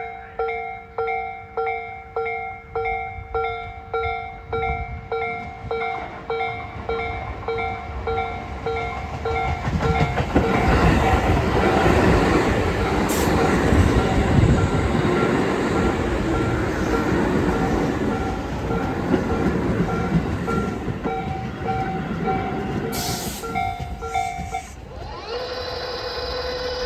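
A Tobu 8000-series electric train running into the station, its wheels and running gear rumbling loudly as it passes close by and slows. Over it, a level-crossing warning bell rings about twice a second and stops near the end. There is a short hiss of air shortly before the bell stops.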